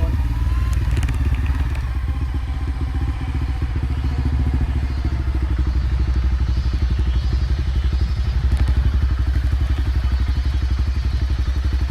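Motorcycle engine running steadily while riding, its firing pulses closely and evenly spaced over a strong low rumble.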